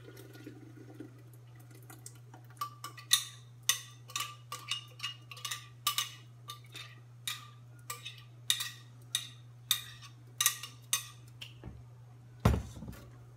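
Clinking and tapping of a blender jar and utensil, about two strikes a second, while blended chile is emptied from the jar into a stainless steel stockpot, ending in one heavier knock. A steady low hum runs underneath.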